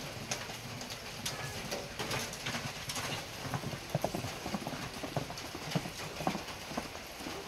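Hoofbeats of a horse cantering across dry dirt ground: a quick, irregular run of thuds, strongest in the second half.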